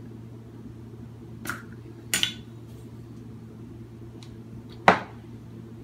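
Glass bowls clinking and knocking: a light tap about one and a half seconds in, a quick double clink just after two seconds, and the loudest knock near five seconds.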